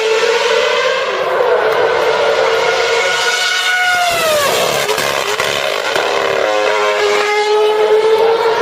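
Formula 1 car's 2.4-litre V8 with an exhaust-blown diffuser, running at high revs with a steady, high-pitched note. About four seconds in the pitch falls sharply. After a rough, broken stretch it holds steady again and climbs near the end.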